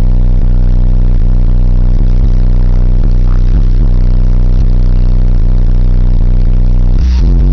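Loud, deep bass music played through an 18-inch Fi subwoofer in a trunk wall, powered by a Hifonics 1600 W RMS mono amplifier. The bass is heard inside the car's cabin, with sustained low notes that change every fraction of a second.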